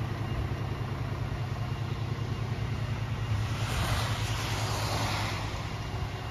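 Scania R500 truck's diesel engine running steadily as the truck pulls away at low speed, a low hum under a hiss of tyres on wet tarmac that swells about halfway through.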